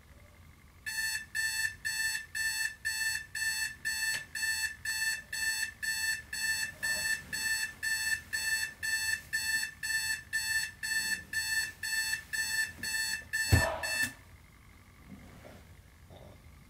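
Bedside electronic alarm beeping in a steady high-pitched pattern, about two beeps a second. Near the end there is one loud thump as it is switched off, and the beeping stops.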